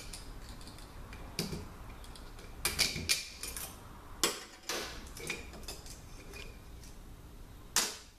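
Sharp metallic clinks and clatter from a transmission's 2-3-4-6 clutch pack as its snap ring is pried out with a pick and the steel and friction clutch plates are lifted off the clutch drum onto a steel bench. There are several clinks in quick succession about three seconds in and a loud one near the end.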